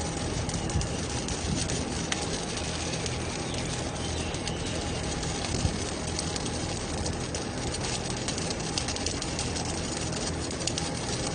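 MIG welding arc crackling and sizzling steadily as a robot-held torch lays a continuous weld on metal railing, with a low steady hum beneath.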